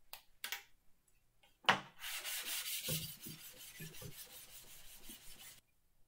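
A sharp knock, then the cast-iron sole of an Ohio No. 102 block plane scraping back and forth on 220-grit sandpaper for about three and a half seconds. This is lapping the sole flat, rubbing until the Sharpie lines are gone. The scraping stops suddenly near the end.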